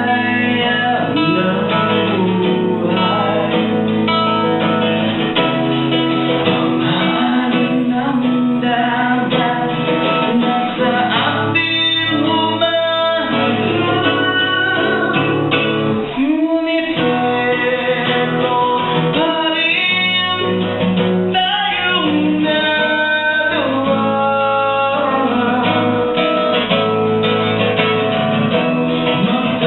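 Violin playing a melody over a plucked-string accompaniment, as continuous music.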